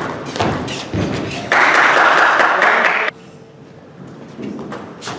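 Table tennis ball clicking sharply off paddles and table in a quick rally. About a second and a half in, a loud rushing noise takes over for about a second and a half and cuts off abruptly, followed by a few lighter taps.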